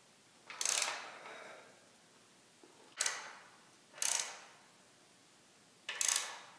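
Small ratchet wrench clicking in four short runs as bolts are tightened into a cast-iron lathe leg.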